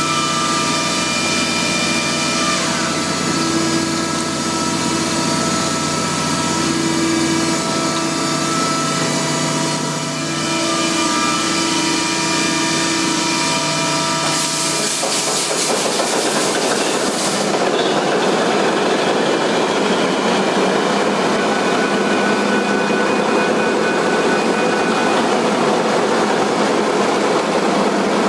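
Engine-room machinery hum with several steady whining tones. About 14 seconds in, a loud hiss lasts about three seconds. Then the Wärtsilä dual-fuel main engine is running: a dense, steady engine noise fills the rest.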